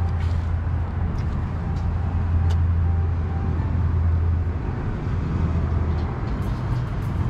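Steady low hum of a motor vehicle running, easing off about four and a half seconds in, with a few faint clicks over it.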